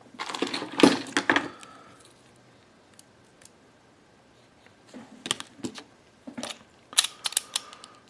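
Small sharp clicks and light knocks from handling a Master Lock Speed Dial directional padlock and a pen on a paper sheet, in two clusters with a quiet stretch between.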